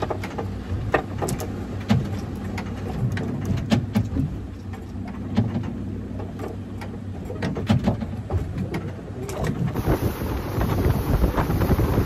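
A boat's engine idling in a low, steady hum, with scattered light clicks and knocks. About ten seconds in it changes abruptly to louder wind rushing across the microphone as the boat runs over open sea.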